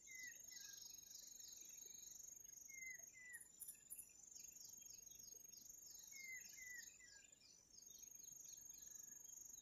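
Faint natural ambience, near silence: insects chirp in a steady, quickly repeating trill with a thin high whine above it. A bird gives a short pair of whistled notes three times, about three seconds apart.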